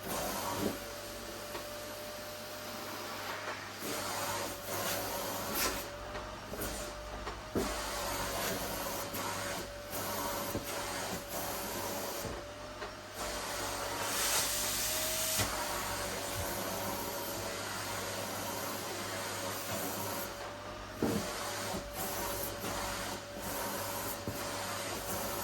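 Vacuum cleaner running steadily: a constant motor whine over a rushing suction noise that swells and dips as it is worked, with a few sharp knocks.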